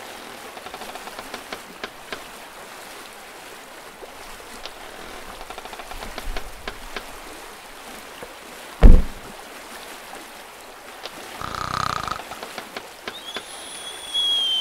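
Steady hiss of a sea or water sound effect, broken by one sudden loud thump about nine seconds in. Later comes a short hum, then a high whistling tone that dips slightly near the end.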